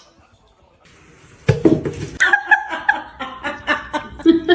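A person bursts out laughing about a second and a half in, a fast run of short ha-ha pulses.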